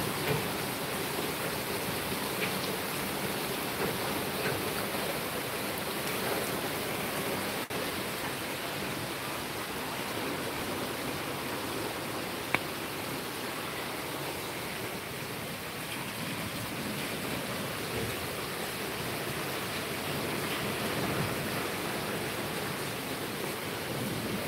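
Steady rain falling: an even hiss throughout, with a few faint scattered taps and one sharp click about halfway through.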